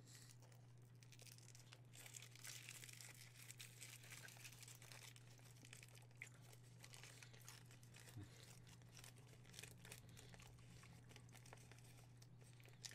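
Near silence: room tone with a steady low hum and faint scattered crackles and clicks.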